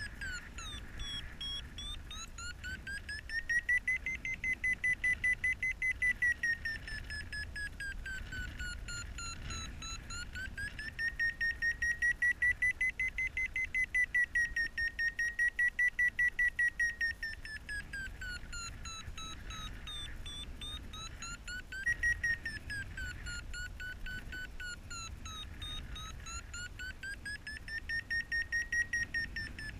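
Paraglider variometer sounding in a thermal: its tone slides slowly up and down, breaking into quick regular beeps whenever it rises, which signals the glider climbing in lift, and settling to a lower, steadier tone in between. Faint wind rumble underneath.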